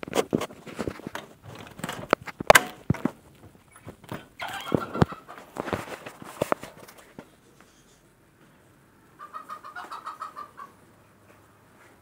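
Knocks and rustling as the hawk is carried on the glove, then, about nine seconds in, a rapid series of about ten short, sharp calls from a Eurasian sparrowhawk.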